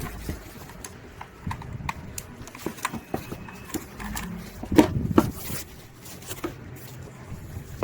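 Scattered light knocks and clicks of a mechanical keyboard and its packaging being handled and lifted out of the box, the loudest pair of knocks about five seconds in.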